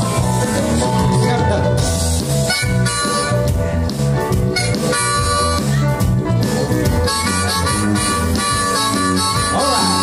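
Harmonica playing a melody over a live band with guitars and keyboard.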